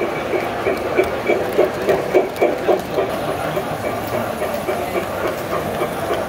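Tinplate toy electric train with a steam-type locomotive running past on three-rail track: a steady motor hum with a regular clicking of the wheels over the track joints, about three clicks a second.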